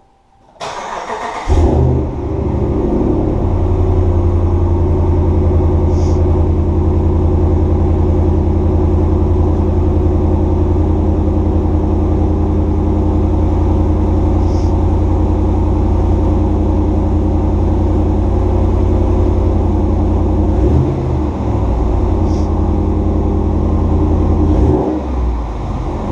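An engine starts about a second in and then runs steadily at an even speed, dipping briefly twice near the end.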